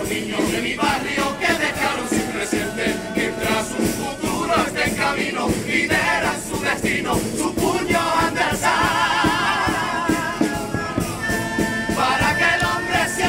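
Men's carnival choir (comparsa) singing a song in harmony over a steady percussion beat. Past the middle the voices settle into long held notes with vibrato.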